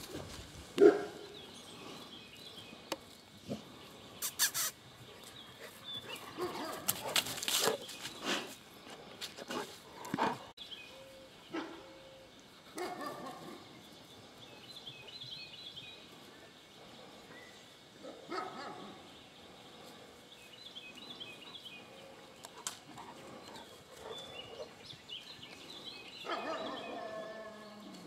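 Dog barking now and then in short, separate calls, with a longer run of calls near the end. A few sharp knocks come in between the early barks.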